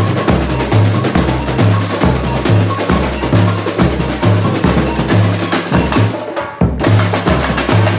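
Samba bateria playing: deep bass drums pounding a steady, evenly spaced beat under a dense, fast clatter of snare drums and other hand percussion. The whole band drops out for a split second about six and a half seconds in, then comes straight back in.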